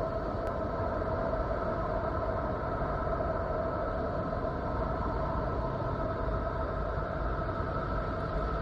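Space audio played as the sound of Neptune: a steady, wind-like rumbling rush with a few faint steady tones held over it, evenly throughout.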